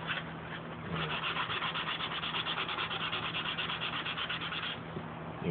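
Sandpaper on a hand sanding block scrubbing over cured flowable polyester putty in quick, even back-and-forth strokes, starting about a second in and stopping shortly before the end.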